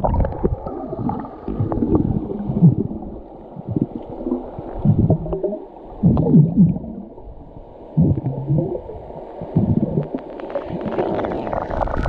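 Muffled gurgling and bubbling of water, coming in uneven surges.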